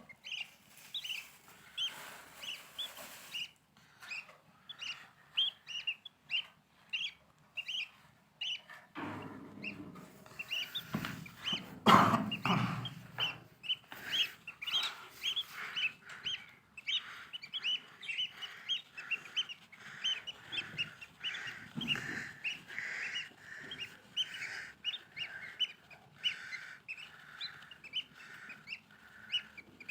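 Lovebirds chirping, short high calls repeated several times a second without pause. A louder, lower noise breaks in a little before halfway.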